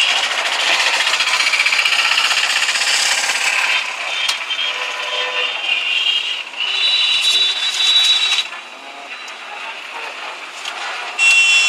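Busy roadside traffic noise, with vehicle horns sounding, the longest blast about two-thirds of the way in and a short one near the end.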